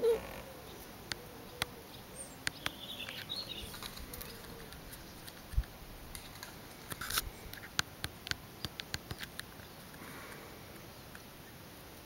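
A black Labrador puppy gives a short whine or grunt at the very start, followed by scattered light clicks and taps, most frequent in the second half, and a single low thud about halfway through.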